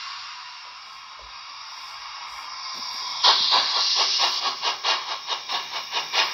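TRIX H0 model of the ČSD 498.1 steam locomotive giving a steady steam hiss, then about three seconds in a louder, rhythmic steam chuffing, about four beats a second, as it runs with its smoke generator going.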